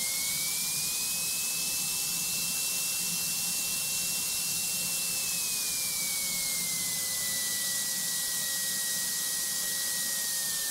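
Single-engine light aircraft's piston engine running at taxi power in the cockpit: a steady hiss with a high whine that rises in pitch over the first two seconds, holds, then slides back down about five seconds in.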